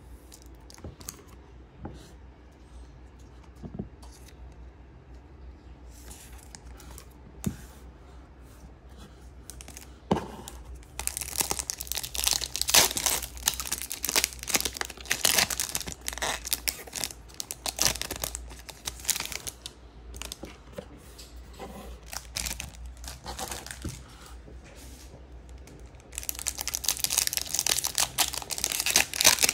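Topps Chrome baseball card pack wrappers being torn open and crinkled by hand, in bursts of dense crackling. The first third is quieter, with only a few small clicks of card handling.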